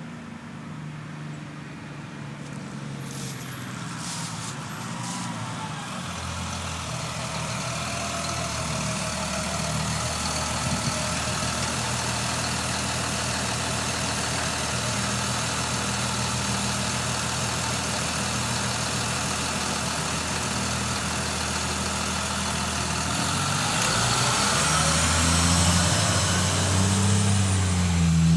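Bus engine drawing closer and pulling up, then idling steadily at the stop. Near the end the engine revs up as the bus pulls away, louder than before.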